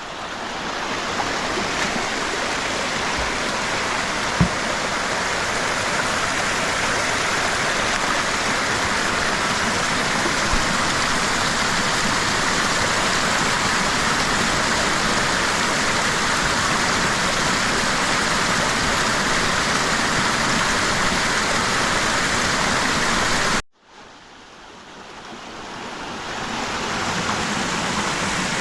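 Steady, loud rush of water, fading in at the start, cutting off abruptly about 24 seconds in, then fading back up.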